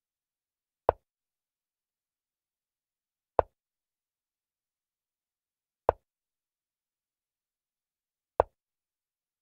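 Chess move sound effect: a short, sharp click of a piece being set down, heard four times, one every two and a half seconds, each marking a move on the animated board.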